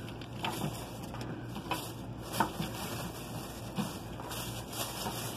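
Handling noise: a few short, scattered rustles and light clicks as toys are sorted through and picked up.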